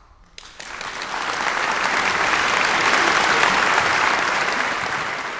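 Concert audience breaking into applause: a few scattered claps about half a second in, quickly building into full, dense applause that holds steady.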